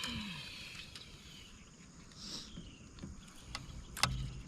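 Faint outdoor ambience with a few high, downward-sliding animal chirps in the first second and again near the middle, and a couple of light knocks near the end.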